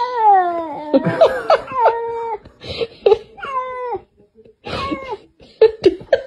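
Cat meowing: one long, drawn-out call followed by about four shorter ones, each falling in pitch.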